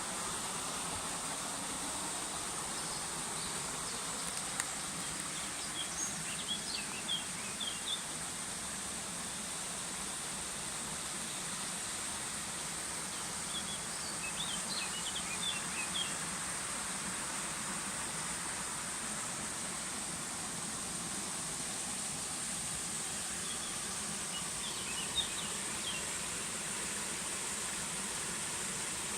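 River water flowing with a steady rush, while a small bird sings three short bursts of quick chirps, one near the start, one in the middle and one near the end.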